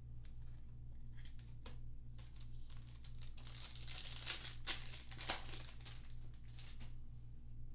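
Plastic foil trading-card pack wrapper crinkling as it is torn open and handled, with a burst of crackling in the middle and small clicks of cards being handled around it. A faint low hum runs underneath.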